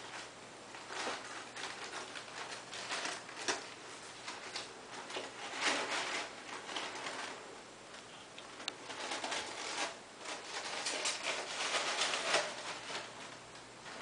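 Dry rustling and scratching in irregular bursts, the sound of small animals scrabbling about on plastic and paper.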